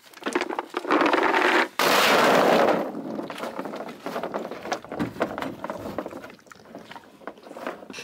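Cattle range cubes (cow cake) poured into a metal feed bunk in two rattling pours about a second each, followed by calves eating the cubes with scattered crunching clicks.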